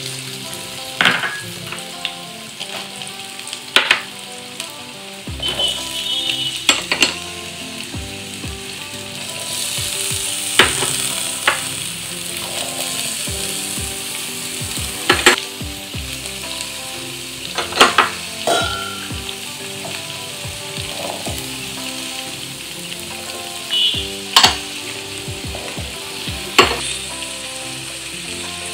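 Handfuls of chopped vegetables dropping into hot groundnut oil in a metal kadai and sizzling steadily. There are sharp clatters about ten times as pieces land in the pan.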